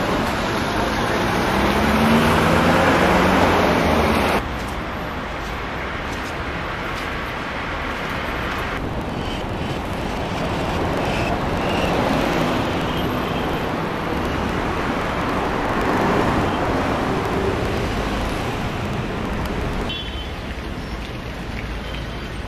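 City street traffic noise: passing motor vehicles and engines. It is loudest for the first four seconds, drops abruptly, and then goes on as a steadier background of traffic that swells and fades.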